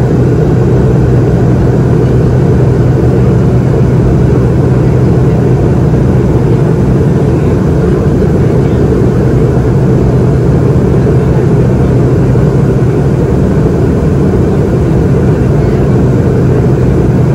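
Steady cabin noise inside a McDonnell Douglas MD-88 airliner in flight: a constant low hum from its tail-mounted Pratt & Whitney JT8D-200 series turbofans under an even rush of airflow.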